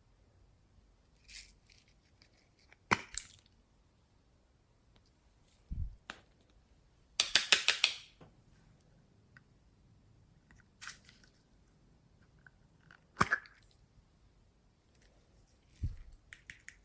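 Glossy slime being worked by hand: scattered sticky clicks and crackling pops, with a rapid run of crackles about seven seconds in and two soft low thuds, one near the middle and one near the end.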